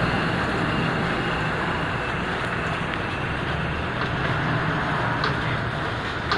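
OSC Titan 5-axis CNC stone cutting machine running: a steady, noisy drone with a faint low hum underneath.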